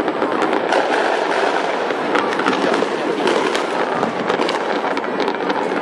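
Many fireworks going off at once: a continuous wash of overlapping bangs and crackling, with many sharp pops on top and no let-up.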